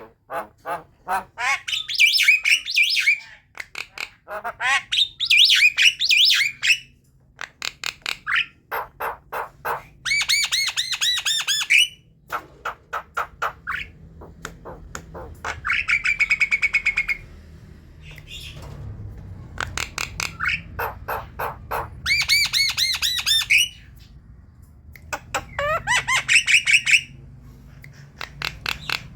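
Javan myna chattering: bursts of rapid clicking notes alternating with harsh, squawking calls, some sliding upward in pitch, each run lasting a second or two with short pauses between.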